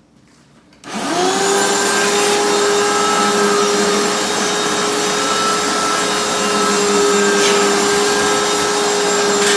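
Vacuum cleaner switched on about a second in, its motor spinning up to a steady whine and then running at full speed, used to vacuum dust out of a clogged refrigerator condenser coil.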